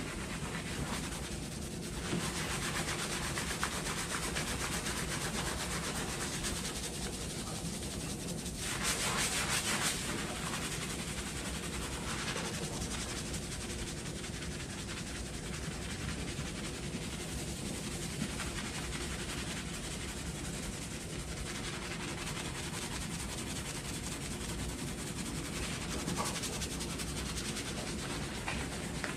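Hands scrubbing shampoo lather through hair and scalp: a continuous rubbing scratch, louder for a moment about nine seconds in.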